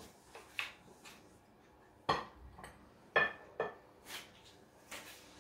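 Dishes and utensils clinking: a handful of separate knocks and clinks, the sharpest about two and three seconds in, some with a short ring.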